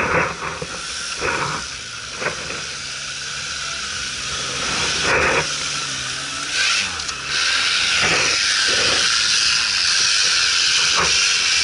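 Off-road 4x4 engines running and revving as the vehicles push through deep snow, under a steady loud hiss, with a few short knocks.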